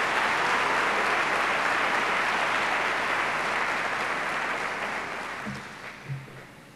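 Audience applauding to welcome a speaker to the stage. The clapping is steady and full for several seconds, then thins out and dies away over the last two seconds.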